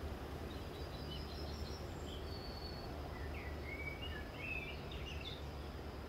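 Songbirds singing faintly: scattered short chirps and whistles, busiest between about three and five seconds in, over a steady low background rumble.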